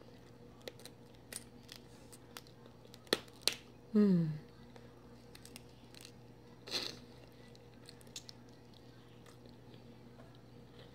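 Close-up mouth sounds of eating boiled Dungeness crab: scattered wet smacking clicks and chewing as meat is sucked from the leg shell, with a brief slurp near seven seconds. About four seconds in comes a short falling "mm" of enjoyment.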